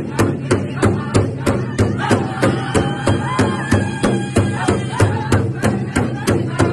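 Powwow drum group striking one large hide-headed powwow drum together in a steady beat, about three strokes a second, while the men sing over it. A song for the men's grass dance, with a high held sung line through the middle.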